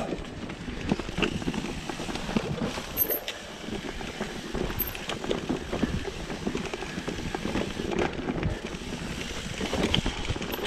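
Mountain bike being ridden over a rough trail: a steady rush of tyre noise with frequent small rattles and knocks from the bike.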